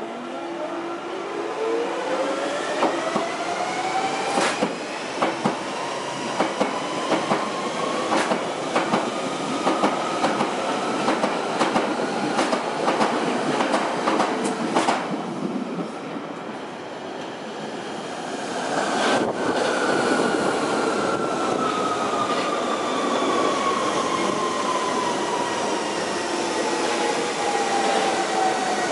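London Underground electric trains: a train accelerating with a rising traction-motor whine and repeated sharp clicks from the wheels over the rails, then from about 19 seconds in a train slowing with a long falling whine over steady running noise.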